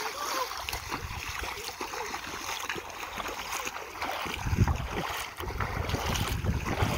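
Shallow sea water splashing and sloshing around wading feet, with wind buffeting the microphone in a low rumble from about four seconds in.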